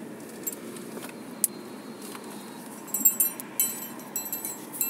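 Light metallic clinking and jingling, like keys or small metal parts knocking together: a few scattered clicks at first, then a quick cluster of clinks over the last two seconds, over low steady background noise.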